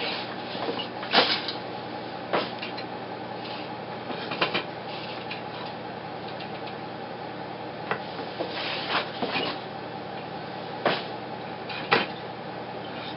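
Wooden floor loom being woven on by hand: a sharp wooden knock every second or two as the beater is pulled against the cloth and the shuttle and frames clack. A steady hum runs underneath.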